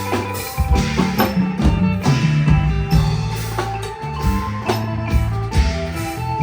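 Isan pong lang folk band playing a tune: drums and percussion strike a steady beat over a moving bass line, with pitched notes above.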